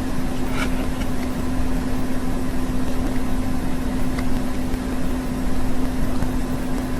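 Steady machine hum with a constant low buzzing tone over a bed of hiss. A small bird gives one faint short chirp about half a second in.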